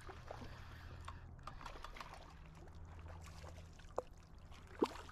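Hooked smallmouth bass splashing and thrashing at the surface in shallow water as it is reeled to the bank, with small water splashes and ticks and two sharper splashing knocks near the end.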